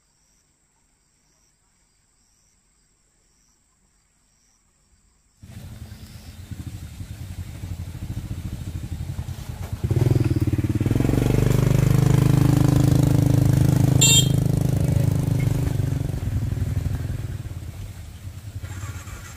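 Near silence at first, then a small step-through motorcycle's engine starts running about five seconds in. About ten seconds in it gets much louder and runs hard, working under a load of heavy sacks, with a sharp click a few seconds later, then eases off near the end.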